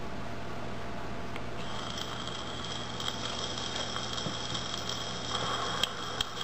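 Edison Amberola phonograph running with its diamond reproducer on the blank lead-in of a cylinder: steady surface hiss and a low hum with a few faint clicks. A faint high steady tone comes in about a second and a half in, ahead of the recording starting.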